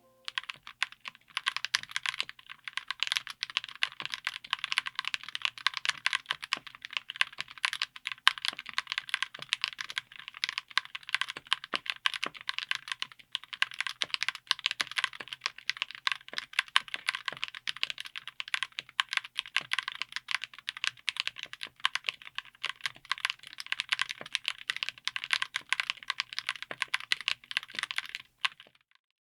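Continuous fast typing on a mechanical keyboard fitted with Akko Flash magnetic linear switches: a dense, even stream of crisp key clacks that stops just before the end.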